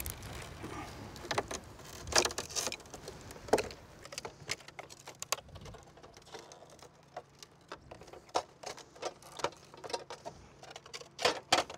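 Irregular small clicks, ticks and scrapes of a thin utility knife cutting through the silicone joint between a vinyl window sash and its cracked glass pane, with pieces of broken glass being handled. A quick run of clicks comes near the end.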